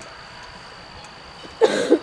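A short, loud vocal sound near the end, lasting about half a second, over a low steady background.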